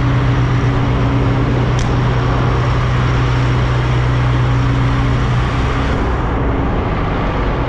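Kenworth semi-truck's diesel engine running close by at low speed, a steady low drone with a strong hum that eases off about six seconds in.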